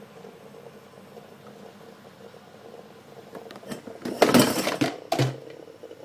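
Handling noise from the recording phone being picked up and moved: a burst of rustling about four seconds in and a short knock just after five seconds, over a faint steady hum.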